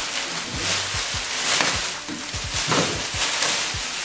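Gift wrapping rustling and crinkling as a present is unwrapped by hand, louder in swells about a second and a half in and again near three seconds, over background music.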